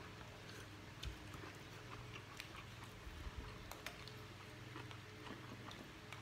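Faint chewing and eating sounds of people eating rice and spicy fried fish by hand, with scattered light clicks and taps of plates, over a low steady hum.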